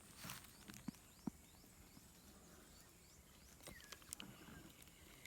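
Near-silent outdoor ambience: faint, short high chirps repeating a few times a second, with a brief swish near the start and two small clicks about a second in.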